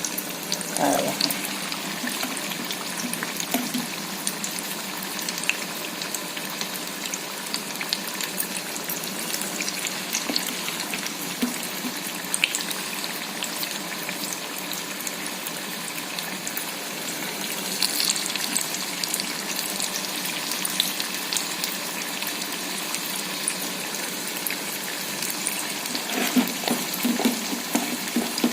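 Banana-flower fritters frying in hot oil in a kadhai on low heat: a steady sizzle with many small scattered pops.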